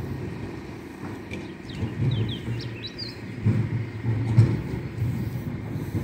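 Refuse truck's diesel engine running with a low rumble that swells and fades. A few short bird chirps come in about two to three seconds in.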